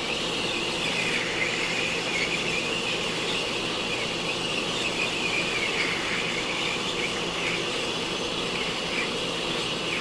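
Handheld electric heat gun running, its fan blowing a steady rush of hot air with a high tone that wavers slightly.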